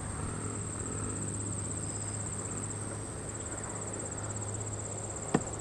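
Crickets trilling steadily, a high continuous pulsing chorus, over a low steady hum, with a single sharp click about five seconds in.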